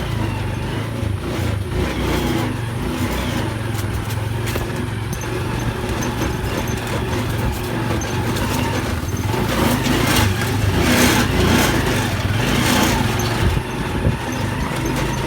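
A motor vehicle's engine running steadily, heard from on board while riding, with a stretch of louder rushing noise about two-thirds of the way through.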